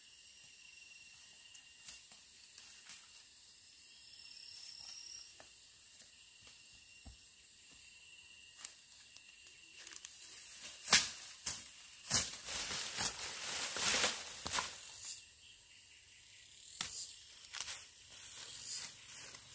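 Rustling through ferns and leaf litter, then repeated sharp strikes of a hand tool digging into forest soil, starting about halfway in. Before that there is only a faint steady insect hum with an occasional small click.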